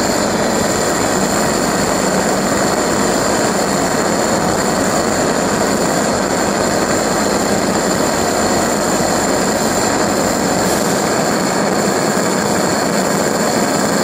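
Homemade LPG and compressed-air pulse detonation combustor with a water jacket and steam jets, running steadily: a loud, continuous rushing drone with a thin, steady high whistle above it.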